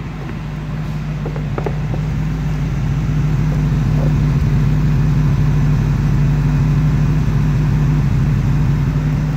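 Cadillac HT4100 V8 idling, heard at the tailpipe: a steady, very quiet exhaust hum that grows louder over the first few seconds as the microphone nears the pipe.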